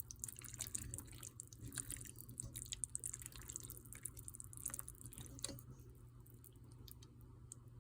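Thick, cheesy pasta being stirred in a pot: soft wet squelches and small sticky clicks, busy at first and thinning out after about five seconds, over a low steady hum.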